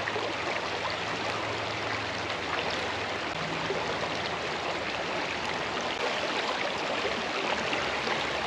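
Shallow creek water rushing steadily where it spills white over a fallen log into a pool.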